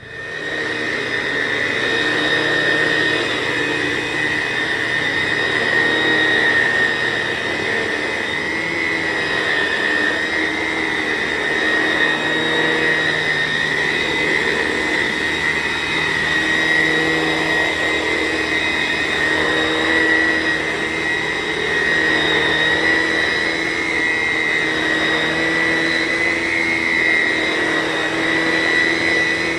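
Vacuum cleaner motor coming up to speed in the first second, then running steadily on carpet with a high whine over a rushing airflow.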